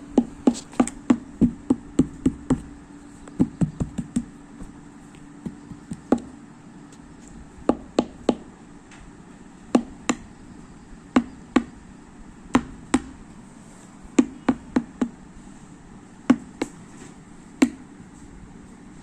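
Parrot's beak pecking and tapping at a hard object: a string of sharp, irregular taps, sometimes several in quick succession and sometimes a second or two apart.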